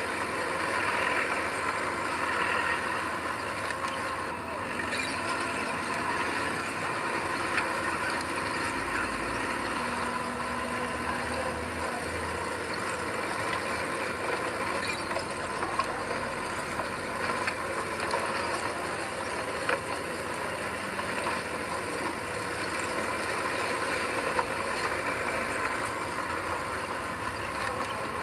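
Heavy earthmoving machinery running steadily, with scattered sharp clicks.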